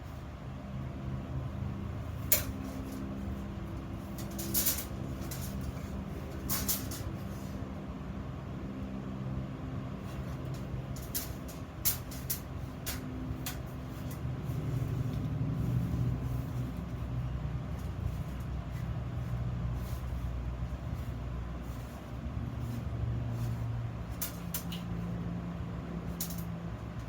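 A steady low hum with sharp clicks and knocks scattered through it, as iron workpieces are handled.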